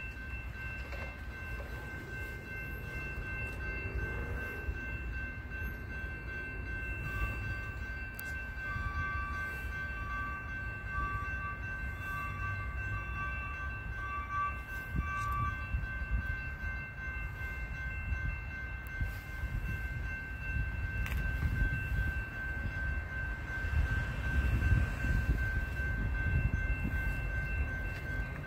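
Grade-crossing warning bells ringing steadily with the gates down as a commuter train approaches. A distant train horn sounds in broken blasts from about a quarter to halfway through, and a low rumble builds near the end.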